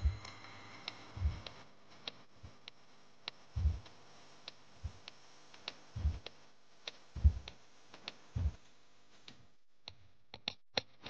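Light plastic clicks and several soft, low knocks at irregular intervals from handling a vacuum blood-collection tube in its plastic holder during a venous blood draw, with a quick cluster of clicks near the end.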